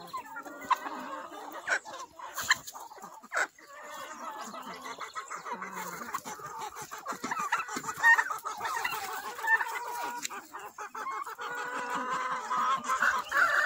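A flock of chickens clucking and calling over one another, a busy, continuous chorus of overlapping calls, with a few sharp clicks in the first few seconds.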